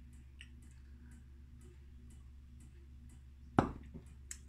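Faint tableware clicks over a low steady hum, then one sharp clack about three and a half seconds in, as of a glass or fork knocking on the table or plate.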